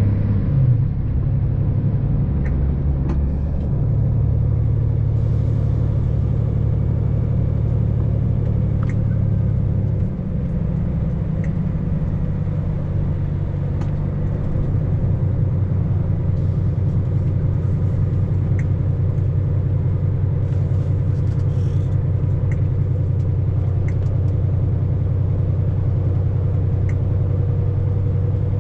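Vehicle engine and road noise heard from inside the cab while driving: a steady low drone that shifts slightly about four seconds in and dips briefly about ten seconds in, with faint scattered ticks.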